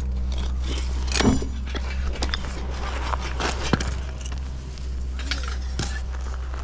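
A steady low hum with scattered clinks, knocks and scrapes, sharpest about a second in.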